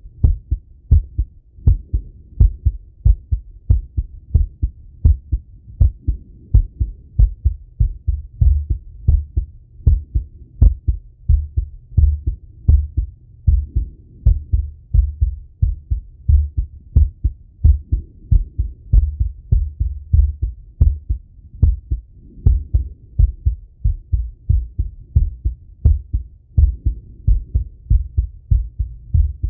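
A man's heartbeat heard through a Littmann stethoscope on the chest, quick and even, each beat a deep thump, raised from exertion after a workout set.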